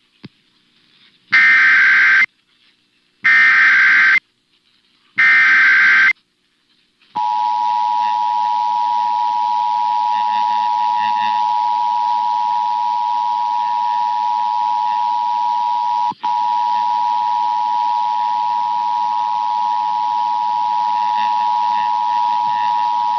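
Emergency Alert System alert opening: three one-second bursts of SAME header data screeching about two seconds apart, then the steady two-tone attention signal (853 and 960 Hz together) starting about seven seconds in and holding, with one brief dropout midway. This is the header and attention tone that announce a Required Monthly Test.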